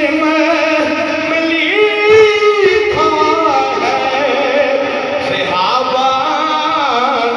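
A man sings a devotional Islamic chant solo into a microphone, drawing out long, wavering held notes with ornamented turns.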